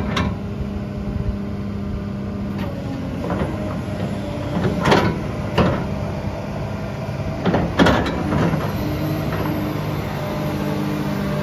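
Diesel engine of a Sany SY265C excavator (Cummins QSB6.7) running steadily at idle, with a few short sharp sounds over it, the loudest about five and about eight seconds in. The engine's hum settles to a slightly lower pitch about eight and a half seconds in.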